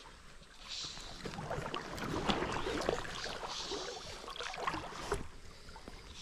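Water sloshing and splashing close by, irregular, with many short sharp splashes; it builds up about a second in and dies away just after five seconds.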